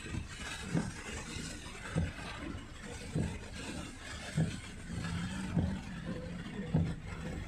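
Car windshield wipers sweeping through heavy rain, heard inside the car cabin, with a low thump about every second and a quarter over a steady hiss of rain and tyres on the wet road. A low engine hum joins about five seconds in.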